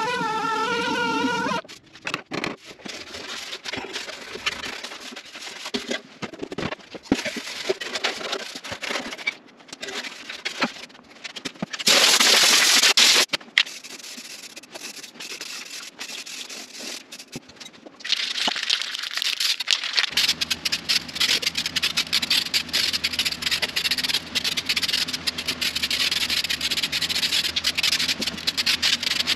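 Garage work noises: clicks, knocks and scraping as parts are handled, a loud hiss for about a second twelve seconds in, and from about eighteen seconds a steady hiss with a low hum beneath it.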